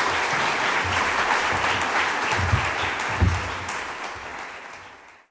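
Audience applauding, dying down near the end before cutting off suddenly. Two low thumps come a little past halfway.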